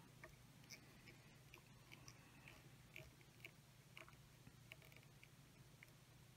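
Near silence: a faint steady low hum with a dozen or so soft, scattered ticks from tying thread and crystal flash being handled at the fly-tying vise.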